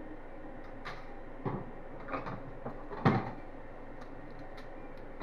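A few short knocks and clunks from handling, the loudest about three seconds in, over the steady hum of a Creality CR-10 3D printer running mid-print.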